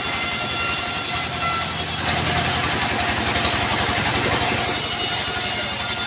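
Engine-driven vertical bandsaw mill running steadily: a low, even engine pulse with the band blade's steady whine on top. From about two seconds in, for a couple of seconds, a rougher hissing noise takes over, then the whine returns.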